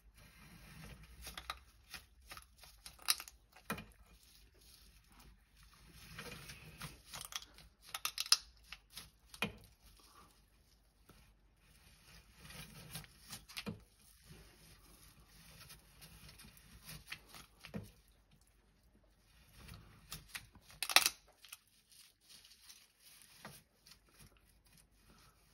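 Black-and-white tegu biting at a live snail, its jaws cracking and crunching the shell: scattered sharp cracks and crinkling, the loudest a few seconds before the end.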